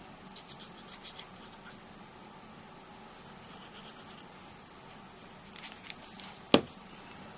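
Faint scratching and rubbing of glue being applied to card stock, then a few light clicks and one sharp knock on the desk about six and a half seconds in.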